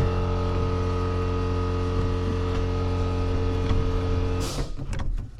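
A motor running with a steady hum, then shutting off abruptly about four and a half seconds in, followed by a few light clicks and knocks.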